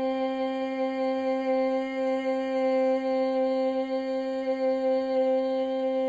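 A woman's voice toning one long, steady sung note for sound healing, held at a single pitch without a break.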